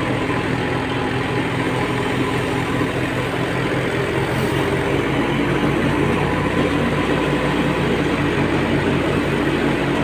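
Tractor-driven wheat thresher running steadily while wheat sheaves are fed in: the tractor's diesel engine holds an even pitch under load, and the thresher's drum and belts rush over it.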